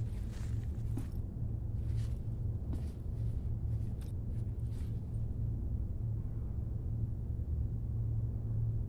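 Fabric backpack rustling as hands rummage inside it, with several brief scrapes in the first five seconds, over a steady low hum.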